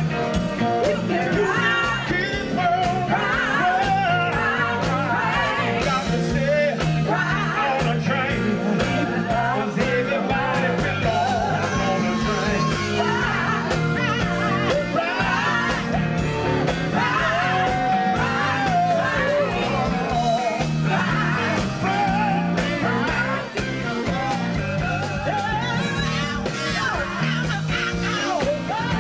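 A women's gospel vocal group singing together over a live band with drums and bass, with harmonica playing along.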